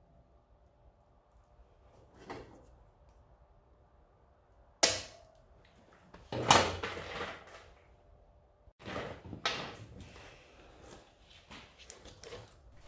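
Scattered sharp metallic clicks and knocks from hand work with pliers on a motorcycle drive chain and its split link. The loudest come about five and six and a half seconds in, with a pair more around nine seconds.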